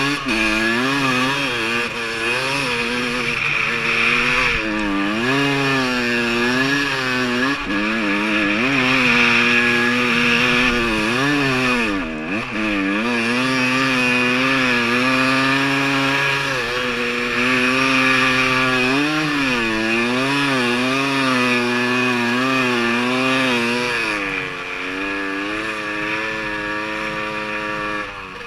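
Snow bike's engine revving up and down with the throttle while riding through deep powder, its pitch rising and falling over and over. The revs dip sharply about twelve seconds in, and the engine quietens near the end.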